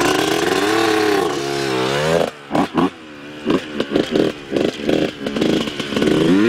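Two-stroke Honda CR dirt bike engine revving and rising in pitch as the bike pulls away. About two seconds in it turns fainter and comes in short throttle bursts as the bike rides off, then revs up again near the end.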